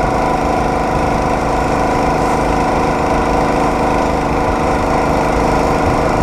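Small engine of a homemade motorized rail cart running at a steady speed as the cart rolls along the rails.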